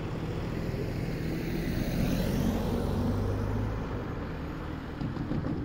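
A car driving past over the level crossing, its tyre and engine noise swelling to a peak about two to three seconds in and then easing off.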